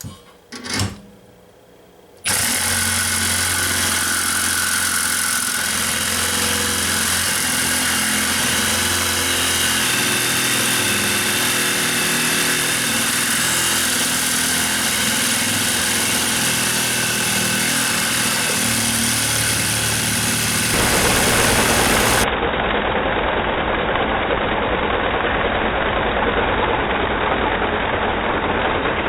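Milwaukee M18 Fuel cordless reciprocating saw with a bimetal blade running steadily as it cuts through a bundle of half-inch steel rebar. It starts about two seconds in, after a couple of short knocks.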